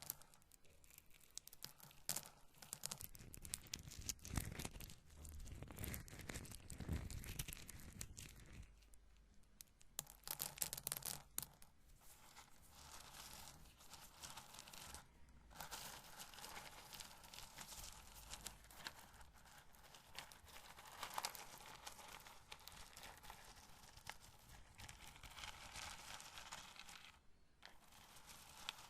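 Roasted corn kernels rubbed together and handled, making a dense crackly rustle full of tiny clicks, with short breaks about nine, fifteen and twenty-seven seconds in.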